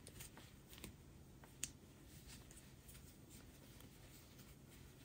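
Near silence: faint rustling and a few light ticks of a crochet hook working bulky yarn, one tick a little louder just over a second and a half in, over a low room hum.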